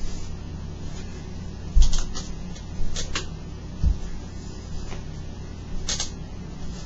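Swivel chair spinning, giving a few sharp clicks, creaks and low knocks at irregular times, the loudest about two seconds in, over a steady low hum.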